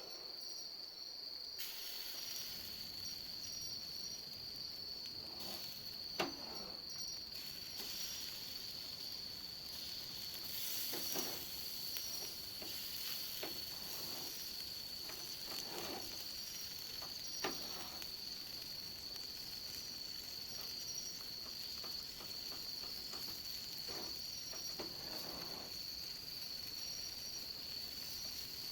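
A steady high trill of crickets over the hiss and sizzle of a wood fire in an 18-litre can grill, with a few sharp crackling pops. The hiss grows louder about two seconds in.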